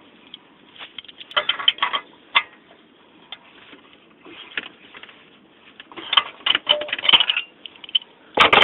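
Hand tools on the exhaust bolts: bursts of quick metallic clicking and rattling from a wrench being worked, with a louder clank near the end.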